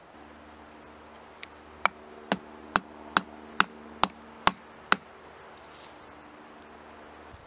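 Knife blade chopping into a green wooden stick: about eight sharp chops, a little over two a second, that stop about halfway through.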